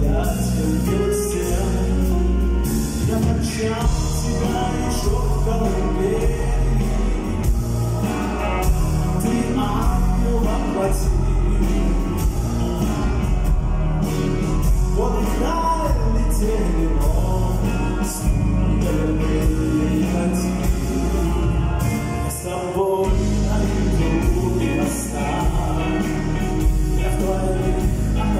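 Live metal band playing: a male lead vocal over bass guitar, drums and electric guitar, loud and dense throughout.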